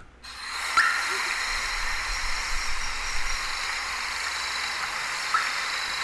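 Field recording of a Short-tailed Nighthawk giving two short calls, about 4.5 seconds apart, over a steady background hiss.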